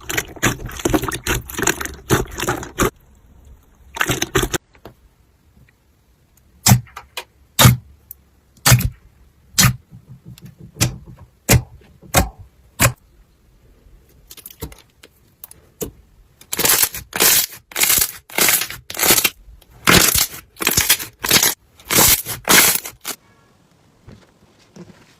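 Slime being pressed and worked by hand, giving crisp crackling and sharp popping: a dense patch of crackles, then single pops about once a second, then a quicker run of pops near the end.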